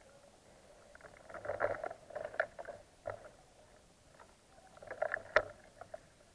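Rustling and crunching close to the microphone in two spells, one starting about a second in and one about five seconds in, with a single sharp click near the end of the second.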